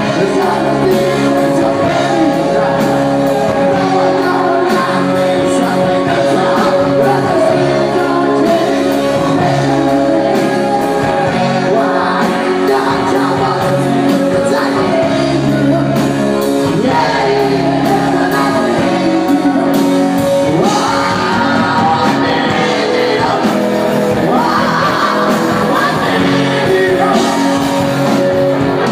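Live rock band playing loud, with electric guitars and bass guitar under a male singer's voice, in a large room.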